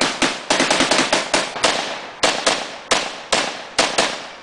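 Several WWII-era rifles firing blank rounds in an irregular volley of sharp shots, about three or four a second, sometimes overlapping in quick clusters.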